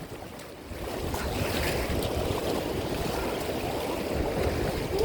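River water rushing and splashing around a paddled raft, a steady watery noise that swells about a second in.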